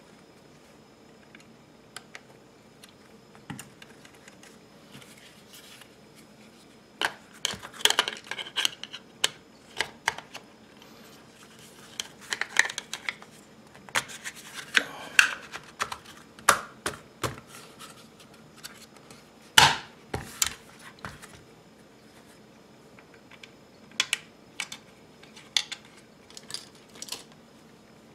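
Metal parts of a BRS-99 pistol being handled and fitted together by hand: irregular clicks, taps and light scrapes in clusters, the sharpest knock about two-thirds of the way through.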